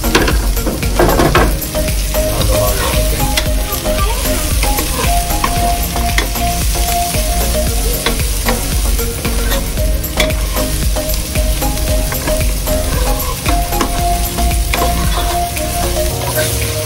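Carrot strips and onions sizzling as they fry in a pot, stirred with a wooden spoon that scrapes and clacks against the pot in many short knocks over the steady sizzle.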